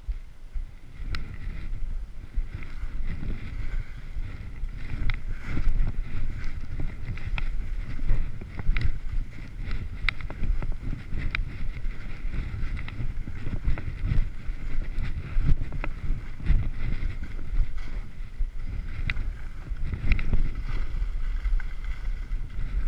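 Skis, 2013 Blizzard Bonafides, hissing and scraping through snow, swelling and fading with each turn, over wind rumbling on the microphone, with scattered sharp clicks.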